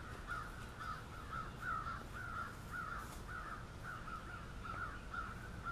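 An animal calling in a steady rhythm, short repeated calls about three times a second, over a faint low outdoor background.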